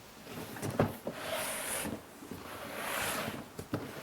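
Packaging rustling as a part is handled, in two swishing spells, with a few light knocks.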